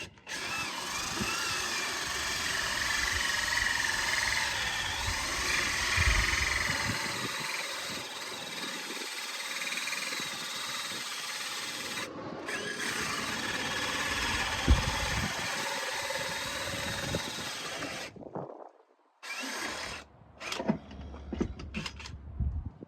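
Power drill running a 2 1/8 inch hole saw as it cuts through a steel door, with a wavering high squeal over the grinding. It runs steadily, breaks off for a moment about twelve seconds in, and stops near eighteen seconds, followed by a few short bursts and knocks.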